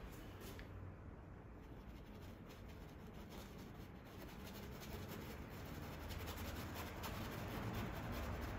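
Faint, repeated scratchy strokes of a round paintbrush's bristles across a canvas, spreading and blending oil paint.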